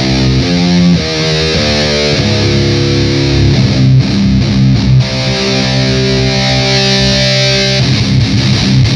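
Electric guitar heavily distorted by an Electro-Harmonix Nano Metal Muff pedal, playing metal riffs: quickly changing notes, then a chord held for about three seconds from about five seconds in, then fast picking again near the end.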